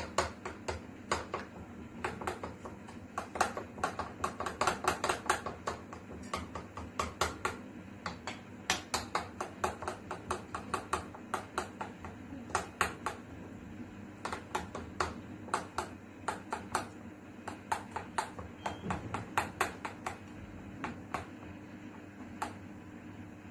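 Metal spoon clinking against a ceramic bowl while stirring thick chocolate cake batter. The clicks come quickly, several a second, in uneven runs with brief pauses.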